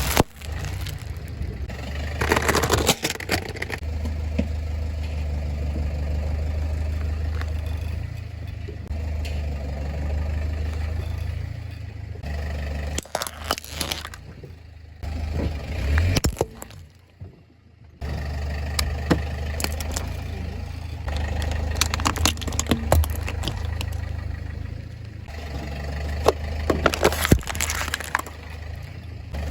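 A car's tyres rolling over and crushing brittle objects, which give several separate bursts of crackling and snapping over the car's steady low engine hum. The hum breaks off a few times between crushes.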